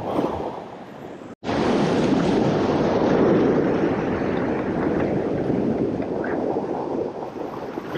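Steady rush of ocean surf washing against a rock ledge, mixed with wind on the microphone. The sound cuts out completely for an instant about a second and a half in.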